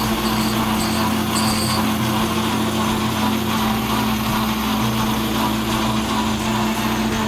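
Atlas Craftsman 12-inch metal lathe running steadily, a constant motor and drive hum. A few faint high squeaks come in the first two seconds.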